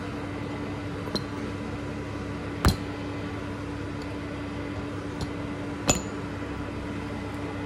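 Handling noise from a clip-on lapel microphone being fiddled with: a few sharp clicks and knocks of the clip against the mic, about a second in, near three seconds and near six seconds, over a steady low electrical hum.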